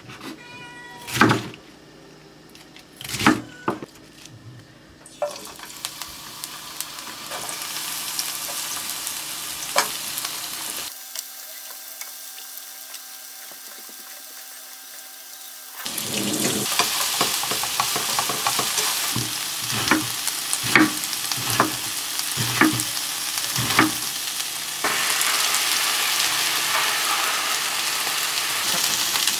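Food frying in a pan, with a sizzling hiss and the clicks and scrapes of a utensil stirring it. In the middle there is a quieter stretch of a few seconds with a faint steady hum, and then the sizzle comes back louder.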